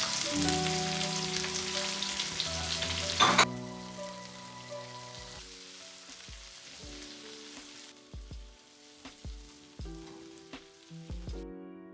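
Onions frying in hot oil in a skillet: a steady sizzle that drops off suddenly about three and a half seconds in. Background music with sustained notes plays throughout.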